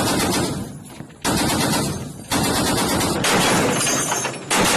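.50 caliber machine gun firing in short bursts of rapid automatic fire: one at the start, one about a second in, a longer burst of about two seconds, and another starting near the end.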